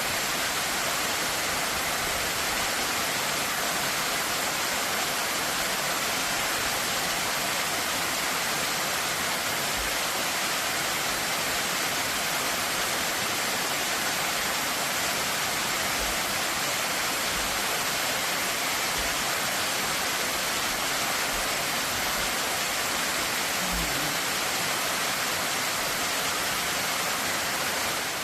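Small mountain waterfall rushing steadily, an even hiss of falling water with no change in level.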